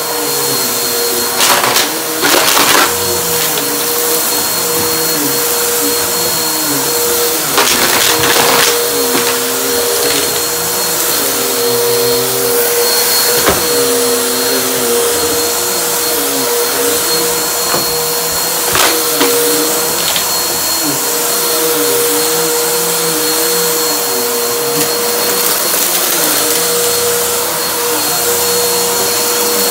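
Bissell upright vacuum cleaner running steadily with a high whine, and a lower hum that wavers in pitch as it is pushed about. A few short bursts of crunching come as it sucks up dry crumbs, the first about two seconds in and the last about two-thirds of the way through.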